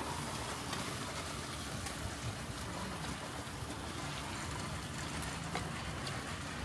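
Chicken yakitori skewers sizzling on a gas-fired grill: a steady hiss with a few faint clicks as the skewers are handled.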